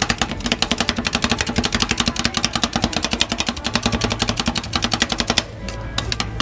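Metal spatulas chopping chocolate and nuts on a rolled-ice-cream cold pan: a fast clatter of about ten taps a second that thins to scattered taps near the end.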